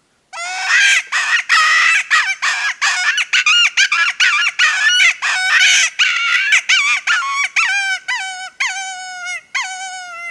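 Recall Design closed-reed predator hand call blown to imitate a hare in distress: a fast run of loud, raspy, wailing cries. Toward the end the cries space out and turn cleaner and softer, each dropping in pitch, and the run ends on a long drawn-out note, the soft finish meant to mimic a dying hare.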